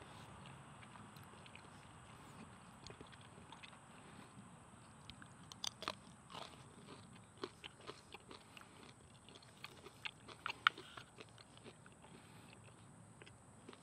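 Quiet eating sounds: scattered light clicks and crunches from chewing and from a wooden spoon on a wooden plate. The sharpest click comes about three-quarters of the way in.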